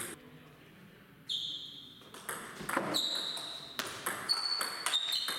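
Table tennis rally: the plastic ball clicking sharply off the bats and the table, several hits a second from about two seconds in, some with a short ringing ping.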